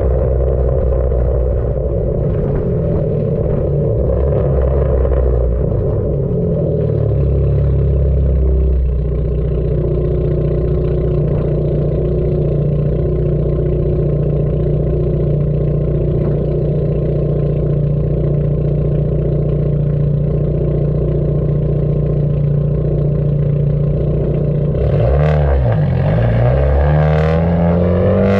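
Dodge Neon four-cylinder exhaust running steadily while the car drives, a dull drone heard close to the tailpipe with road noise under it. Near the end the engine note dips and then climbs as the engine revs up.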